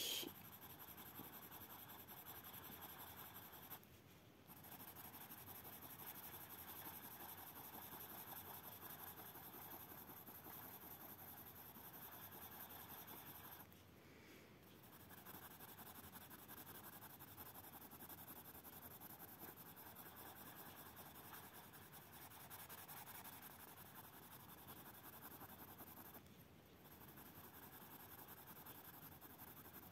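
Lyra Rembrandt Splendor colourless blender pencil rubbing over a layer of pink coloured pencil on paper, working the pigment to blend it. A faint, steady scratching of pencil on paper, with three short pauses.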